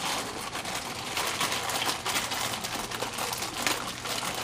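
Canon PIXMA MG5420 inkjet printer running its initial ink-charging cycle: a steady, dense mechanical rattle with a low hum underneath.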